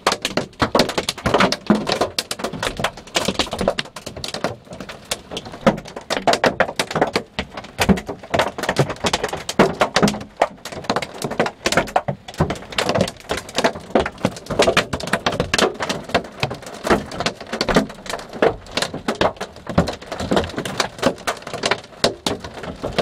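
Hailstones pelting down on hard surfaces, a dense, irregular clatter of many sharp impacts that does not let up.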